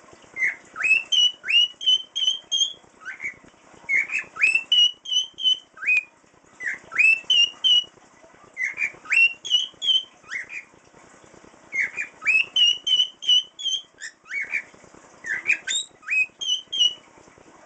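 A cockatiel whistling its tune: phrases of short, sharply upward-sweeping whistled notes, repeated about half a dozen times with short pauses between them.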